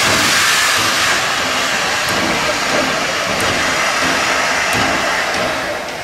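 Steam locomotive No. 5819 venting steam: a loud, steady hiss that eases a little toward the end.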